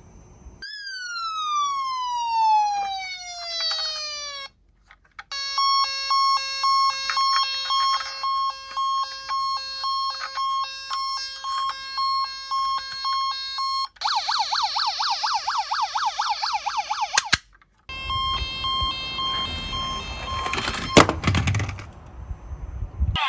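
Electronic siren sounds from a toy ambulance's sound unit: first one long falling tone, then a two-tone hi-lo siren, then a fast yelp siren sweeping up and down several times a second, then the hi-lo siren again over a low rumble, with a sharp click or two.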